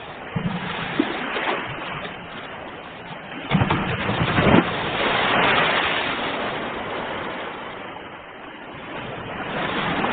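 Ocean waves breaking on shore and washing back. One wave crashes about a third of the way in, swells and slowly fades, and another builds near the end.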